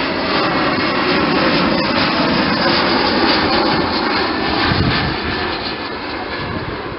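Jet airliner noise from a LOT Embraer 170's twin turbofan engines as it flies low past on approach with its landing gear down. The noise swells to its loudest about three to five seconds in, then begins to fade as the jet drops toward the runway.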